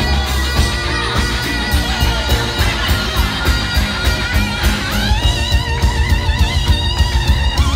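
Live band playing a funk-rock groove with drums and bass, a pedal steel guitar soloing over it. About five seconds in, the steel slides up into a held, wavering high note.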